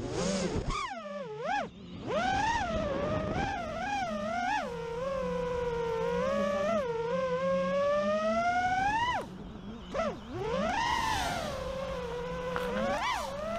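FPV freestyle quadcopter's brushless motors and propellers whining, the pitch rising and falling with the throttle. It drops sharply about a second in and again a little after nine seconds, then climbs back each time.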